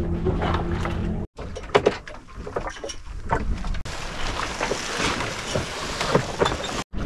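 Sailboat under way: water washing and splashing along the hull in uneven surges, rising to a steady rushing hiss over the last few seconds. The first second carries a steady low hum, and the sound breaks off abruptly twice where clips are cut together.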